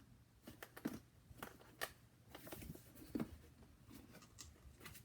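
Faint scattered clicks and a short rustle of packaging being handled and opened by hand.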